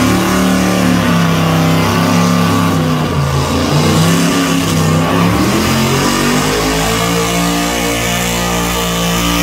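A pulling vehicle's engine running hard at high revs, its pitch shifting in steps before holding steady near the end, with rock music playing over it.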